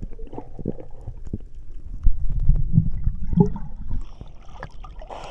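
Muffled underwater rumbling and gurgling of water moving against a submerged camera, with short knocks, easing into lighter water sloshing as it reaches the surface about four seconds in.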